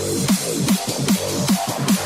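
Electronic dance music with a steady, fast beat, about two and a half beats a second.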